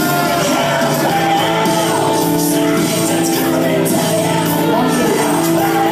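Loud music with singing and long held notes.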